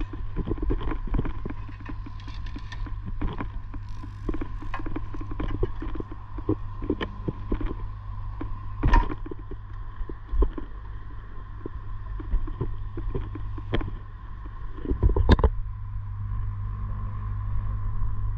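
Knocks, clicks and clanks of a heavy stranded conductor and metal fittings being handled on a steel work platform, with two louder knocks about nine and fifteen seconds in, over a steady low hum.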